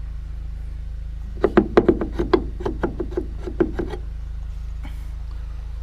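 A quick, uneven run of light knocks or taps, about a dozen in two and a half seconds, over a steady low hum.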